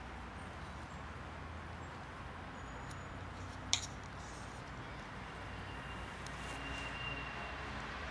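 Steady low outdoor background rumble, with one sharp click a little under four seconds in.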